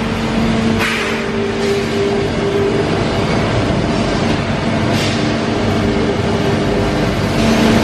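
Steady, loud factory machine noise with a continuous two-tone electrical hum, and brief faint hisses about a second and about five seconds in.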